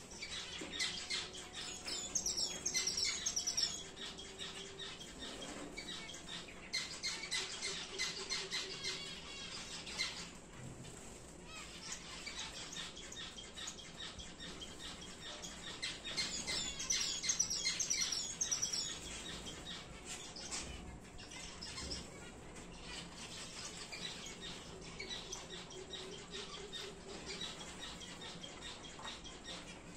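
Star finches chirping and twittering in quick, overlapping calls, with louder runs of rapid twittering about two seconds in and again past the middle.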